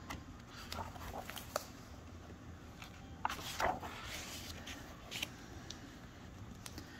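A hardcover book's paper page being turned, a short rustle about three seconds in, with small handling clicks around it.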